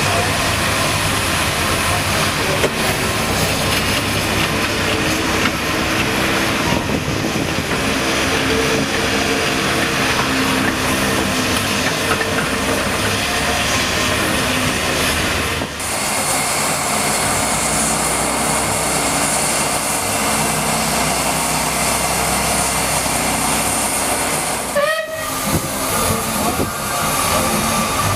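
Steam traction engines running: a steady hiss of steam with mechanical clatter. The sound changes abruptly twice, about halfway and near the end.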